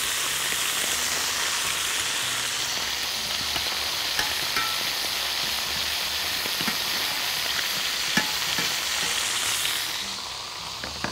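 Chicken thighs, garlic and rosemary sizzling steadily in hot oil in a stainless-steel frying pan, with a few light clicks of a spatula stirring the garlic and rosemary. The sizzle dies down a little near the end.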